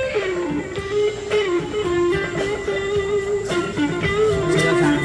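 Live guitar music: an electric guitar plays a lead melody with bent, sliding notes over a steady accompaniment, starting abruptly.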